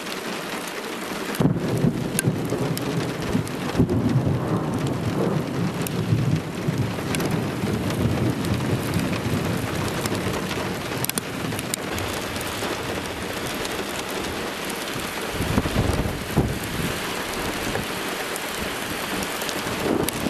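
Thunderstorm: rain falling steadily, with a long roll of thunder starting about a second and a half in and rumbling on for several seconds, and a second, shorter rumble of thunder about three-quarters of the way through.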